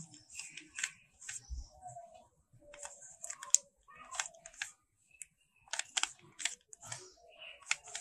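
Plastic 3x3 Rubik's cube being turned by hand: short clicks and clacks of its layers snapping round, in quick clusters of a few turns with brief pauses. The turns are the repeated R' D' R D finishing sequence that brings the last-layer corners into place.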